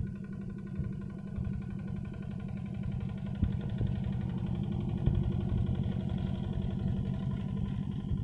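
Yanmar walking tractor's single-cylinder diesel engine running steadily under load as its cage wheels churn through rice straw, with occasional knocks. It gets louder as the tractor approaches.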